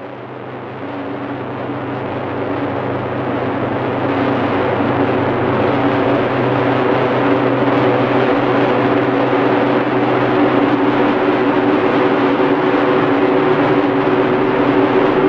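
Opening of an electronic track: a dense, noisy drone with several steady low tones under it, swelling in over the first four seconds and then holding level, with the texture of a jet engine.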